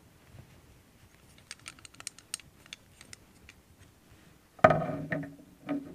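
Small scattered clicks and taps of an Electro-Voice 309A shock mount's plastic frames and elastic suspension cords being handled as the cords are stretched over the frame corners. A louder sound lasting about half a second comes near the end, with a shorter one just after.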